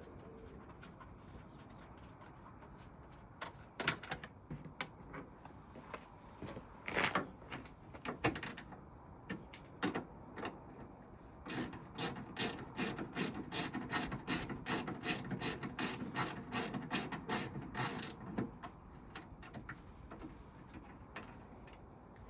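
A 10 mm ratchet spanner clicking as it undoes bolts: scattered clicks and knocks at first, then a steady run of ratchet clicks, about three a second, for some six seconds in the middle.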